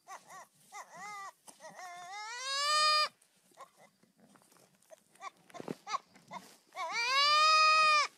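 Young goat bleating: a few short bleats, then a long, loud rising scream about two seconds in, and a second long scream near the end.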